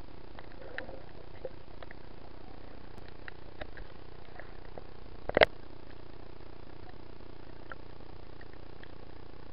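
Underwater recording: a steady hiss with scattered faint clicks and crackles, and one loud sharp crack about five and a half seconds in.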